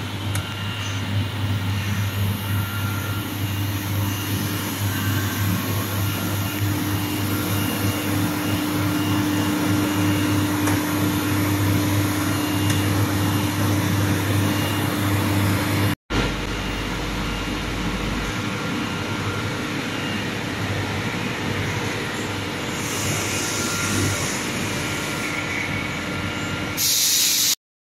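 Steady hum and whir of an industrial dehumidifying hopper dryer's blowers and motors running. It cuts out for an instant about halfway, and a short hiss comes just before it ends.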